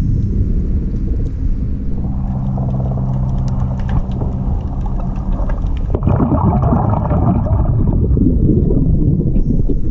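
Underwater, a diver breathing through a regulator. A steady hum with a hiss comes through the first half. About six seconds in, a loud rush of exhaled bubbles crackles past the camera housing.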